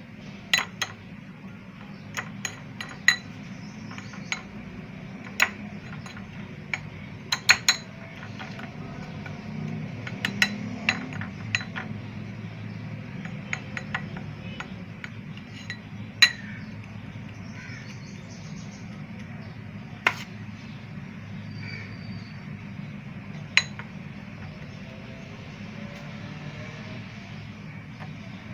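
A spoon clinking and tapping against small serving bowls as crushed Oreo biscuit is spooned in and pressed into a layer: about twenty sharp clinks at uneven intervals, more often in the first half, over a steady low hum.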